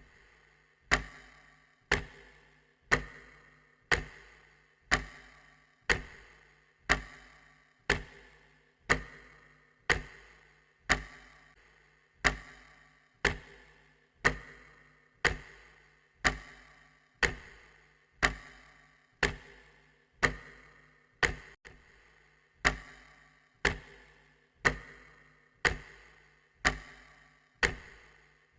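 Clock ticking steadily at one tick a second, each tick a sharp click with a short ring.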